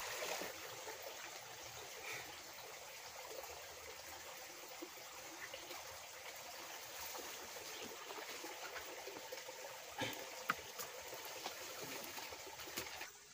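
Steady trickling of a small forest stream, with a few sharp clicks about ten seconds in.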